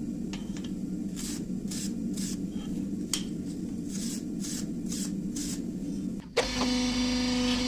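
Hand wire brush scrubbing forge scale off a red-hot forged steel blade, in short scraping strokes about two a second. A click about six seconds in, then a steady machine hum.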